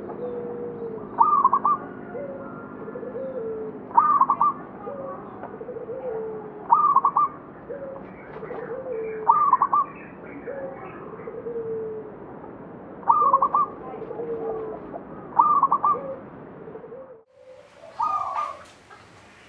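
Zebra dove (perkutut) cooing: a short bright phrase repeated about every two and a half seconds, with lower coo notes between the phrases. The sound drops out briefly near the end, then the calling resumes.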